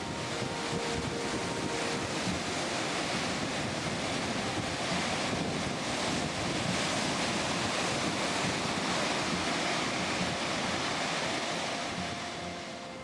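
Sea surf breaking and washing against a rocky shore, a steady rushing noise, with wind buffeting the microphone.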